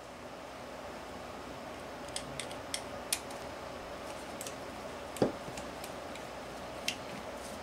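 Scattered clicks and taps of a screwdriver and metal parts as an OS 120AX model glow engine is handled and taken apart, with one louder metallic clunk about five seconds in that rings briefly. A faint steady hum sits underneath.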